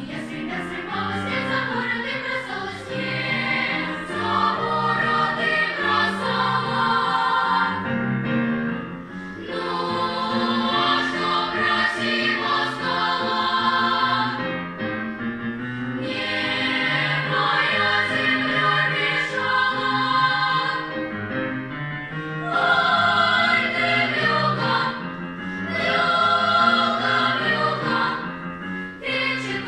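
A choir singing in phrases of several seconds each, with short breaths between them.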